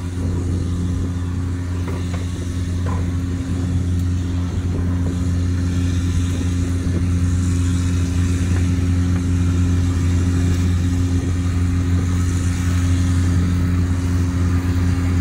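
An engine running steadily: a constant low hum with a few steady overtones, growing slightly louder over the first several seconds and then holding.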